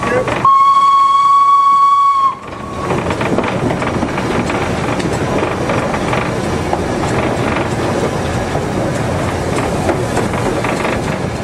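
A train's whistle sounds one steady note for about two seconds just after the start and cuts off. Then the train's running noise on the rails carries on steadily.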